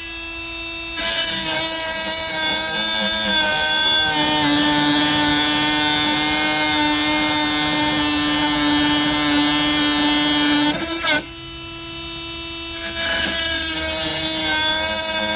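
Milwaukee M12 Fuel oscillating multi-tool with a wide 1 3/4-inch wood blade plunge-cutting a pine 2x4. It makes a steady buzz that gets louder as the blade bites about a second in. About four seconds in, its pitch drops as the motor slows under the wide blade's load. Shortly after ten seconds the blade breaks through and the tool runs free, more quietly, for a couple of seconds, then it bites into a new cut and gets loud again.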